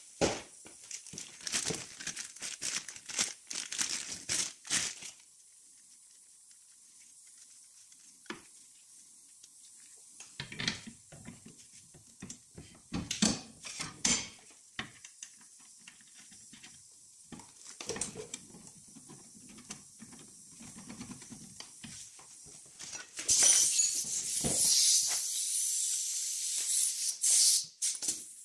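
Hand work on a car's front suspension strut: scattered clicks, knocks and scraping as parts and tools are handled, with a few seconds of loud, hissy rustling near the end.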